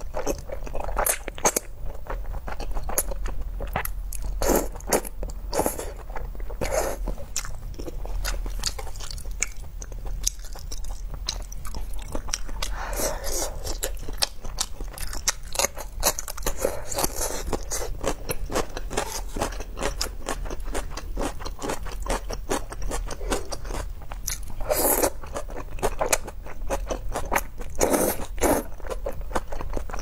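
Noodles in spicy sauce being slurped and chewed, with wet mouth clicks and crunchy bites of the celery and pickle slices. Several longer, louder slurps stand out against steady chewing.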